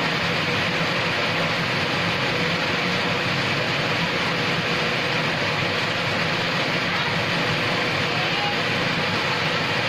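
Rain falling steadily, an even hiss that does not let up.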